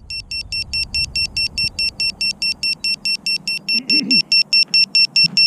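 Rapid electronic beeping from the racing quadcopter's on-board beeper: short high-pitched beeps, about five a second, keeping a steady pace throughout.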